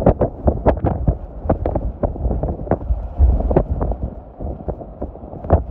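Hurricane wind and driving rain hitting a vehicle, heard from inside: a low buffeting rumble with many irregular sharp raps of wind-blown rain against the glass and body.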